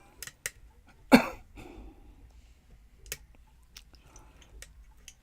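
Lock picks and a tension tool working in a challenge pin-tumbler lock, giving a handful of small, sharp, irregular metal clicks, with one much louder knock about a second in.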